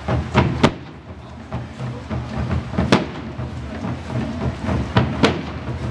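Marching drum corps playing large parade drums: a continuous deep booming beat with sharp, louder accent strikes, the loudest just under a second in and again around three and five seconds in.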